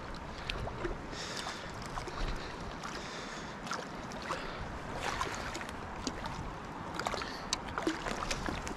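Shallow mountain river running steadily, with scattered small splashes and clicks as a hooked fish is played in on a fly line by hand.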